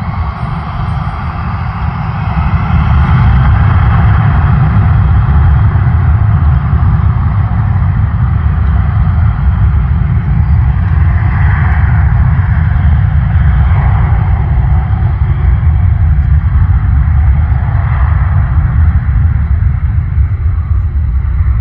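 Jet aircraft engines rumbling loudly, building over the first few seconds and then holding steady.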